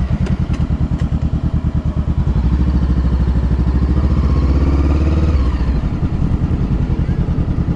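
Motorcycle engine running close by with a steady pulsing beat. Its revs lift slightly and ease back in the middle.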